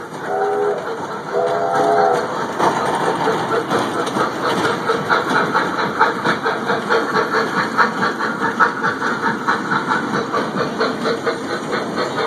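A train's whistle blows two short toots. The wheels then clack rhythmically over the rail joints, about three clacks a second, as the train rolls along.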